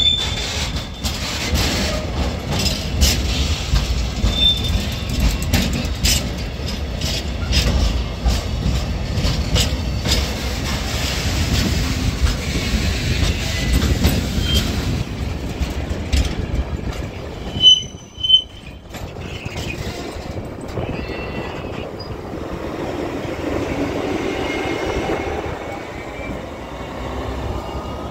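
A train of railway tank wagons rolling slowly past at close range: a low rumble with a run of clicks and clacks from the wheels and couplings over the rail joints, and short high wheel squeals. About 18 s in come two sharp loud squeals close together. Near the end the diesel shunting locomotive working the train passes, its engine running under the rumble.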